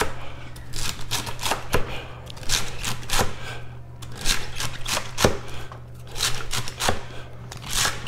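A 240 mm kiritsuke gyuto chef's knife chopping celery on a cutting board: a run of quick, uneven knife strikes against the board.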